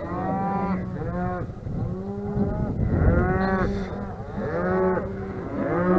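Herd of cattle mooing: many calls overlapping and following one after another, each rising and then falling in pitch.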